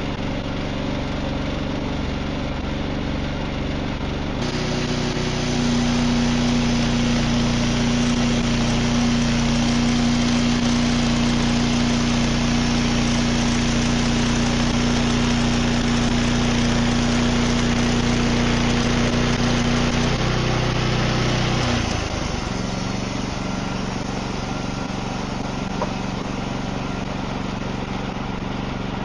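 Wood-Mizer band sawmill running steadily. From about four seconds in, the band blade cuts through a black walnut log, adding a loud hiss and a steady hum over the mill's engine. About 22 seconds in the cut ends, the pitch dips briefly, and the engine carries on at a lower level.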